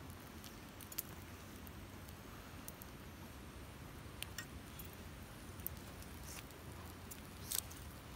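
Wood campfire crackling faintly, with a few sharp pops, the loudest a quick pair near the end.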